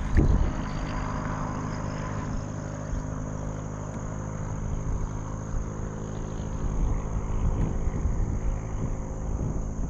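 A steady mechanical hum made of several unchanging tones, under a low rumble of wind on the microphone.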